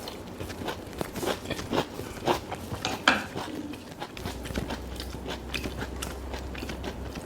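Close-miked eating: a string of crisp crunching bites and chewing, loudest about three seconds in, with a faint low hum in the second half.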